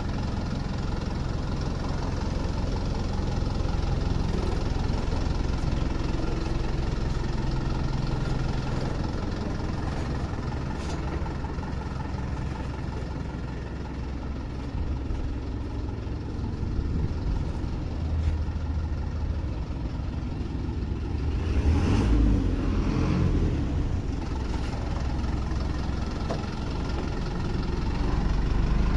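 Diesel engine of a Hino Dutro 136HD light truck idling steadily, with a low hum that grows louder for a few seconds about 22 seconds in.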